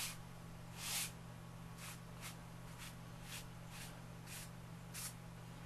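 Stick of lecturer's chalk stroked over a drawing surface: about nine short, quick scrapes, the loudest about a second in, over a steady low hum.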